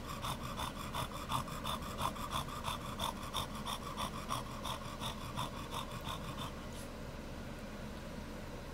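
French Bulldog dam panting hard and fast while whelping, in a quick, even rhythm that stops about six and a half seconds in.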